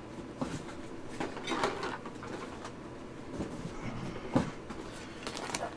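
Light scattered clicks and rustling of hands sifting through a pile of loose cartridges to find a dropped pin, with one sharper click about four seconds in.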